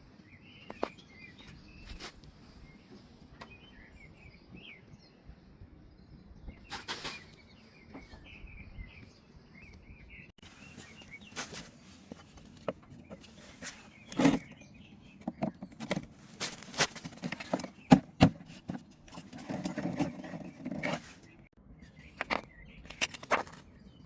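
Scattered clicks, knocks and rattles of parts being handled and fitted together while an electric lawnmower is assembled, busiest in the second half, with the loudest knocks a little past the middle. Birds chirp faintly in the background.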